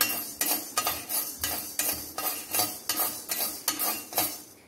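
Steel spoon scraping and stirring urad dal around a dry kadai, in quick repeated strokes of about three a second. The dal is being dry-roasted without oil and has turned golden.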